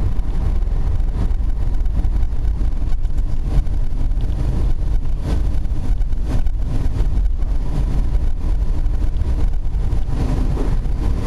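Steady low rumble inside a Boeing 747 cabin as the airliner rolls along the runway: engine noise mixed with the rumble of the wheels on the pavement.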